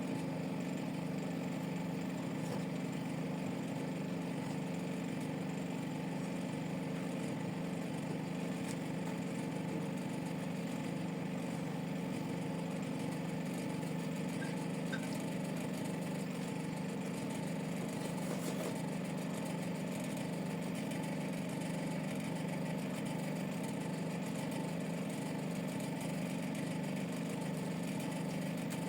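A steady low mechanical hum, like a motor or engine running, unchanging throughout.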